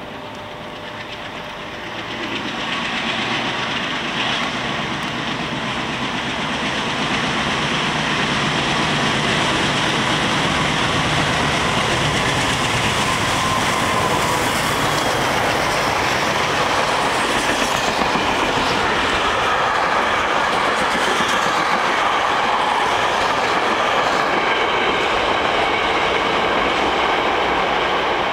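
Freight train hauled by a pair of MLW diesel-electric locomotives approaching and passing at speed, growing louder about two seconds in and again around eight seconds in, then a steady loud rush of the wagons going by.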